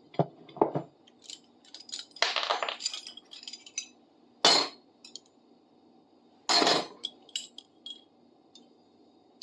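Metal hand tools clinking and clattering as they are taken out of a bucket and set down: a few light knocks, a short rattle about two seconds in, a sharp clink about four and a half seconds in, and another brief clatter around six and a half seconds.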